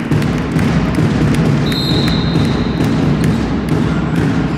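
Ball-game play on a hall floor: repeated ball bounces and taps over a dense background of players' noise. A short, steady, high whistle blast sounds about two seconds in.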